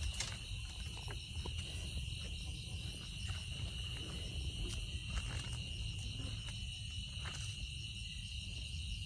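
A steady, high-pitched chorus of night crickets, an unbroken trill with fainter pulsing higher up. A low rumble and a few faint clicks sit underneath.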